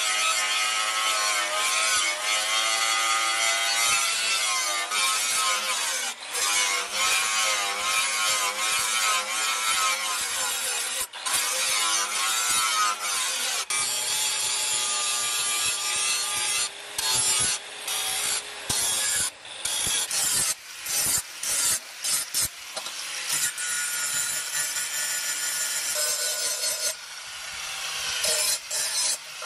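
Angle grinder with a thin cutting disc cutting into the steel of a knife blank, its whine wavering up and down in pitch as the disc bites the metal. In the second half the sound breaks off and starts again many times in quick succession.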